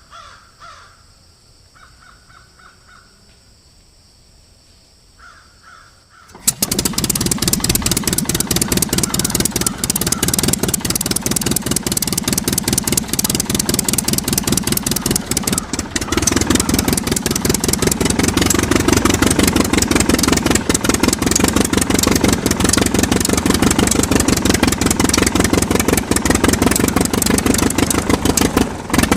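A crow cawing a few times, then a miniature diesel engine starts abruptly about six seconds in and runs with a fast, loud clatter, getting fuller about halfway through.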